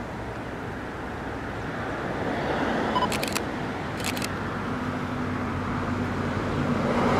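A passing vehicle: steady rushing noise that grows louder toward the end, with a low engine drone coming in about halfway. Two brief high clicks about three and four seconds in.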